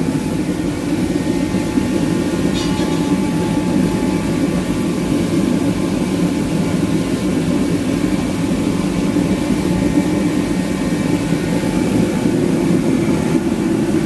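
Master forced-air torpedo heater running steadily: the fan and burner flame make a continuous even rushing noise.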